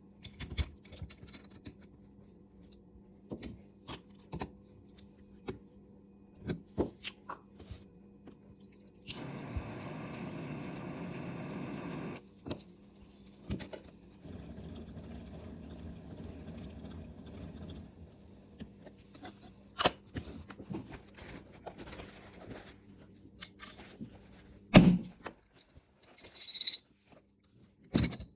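Popcorn machine popping rice: scattered knocks and clatter, a few seconds of steady hiss twice, and one sharp bang about 25 seconds in, the loudest sound.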